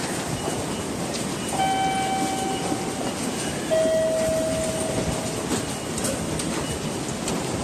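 Railway station ambience: steady train noise with a constant wash of background din. Two held electronic tones sound over it, a higher one about one and a half seconds in, then a lower one about two seconds later.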